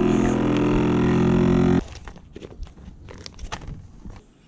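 Dometic vacuum sealer's pump running with a steady hum as the bag is drawn tight around a tuna loin, cutting off suddenly nearly two seconds in. Then faint clicks and rustles of plastic bags being handled.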